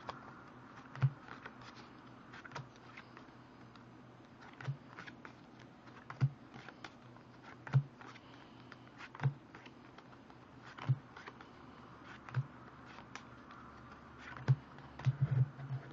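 Red-backed Bicycle playing cards being handled and laid face down on a cloth-covered table: a sharp card tap with a soft thud about every one and a half seconds, light card rustling between, and a quick run of taps near the end.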